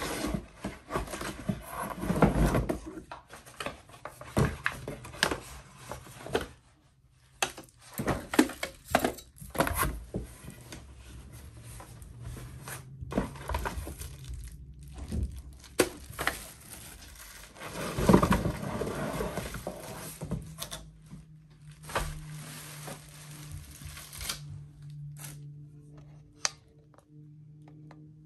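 Cardboard box being unpacked by hand: flaps scraping and knocking, and plastic packaging crinkling in irregular bursts, the loudest about two seconds in and again after about eighteen seconds. A faint steady hum runs underneath in the later part.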